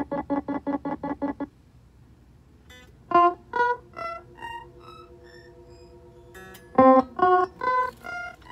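Instrument notes played through a Donner Ultimate Delay pedal. A fast train of echo repeats of one note stops about a second and a half in. Then two short three-note phrases follow, each trailed by echoes that climb higher in pitch, with a soft held tone between them.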